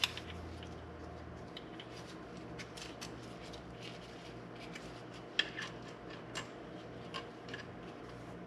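Light metallic clicks and clinks at irregular intervals, from hand tools and small metal parts being handled during an intake manifold install, with the sharpest click about five and a half seconds in.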